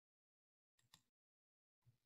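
Near silence, broken by two faint, brief noises: one about a second in and one near the end.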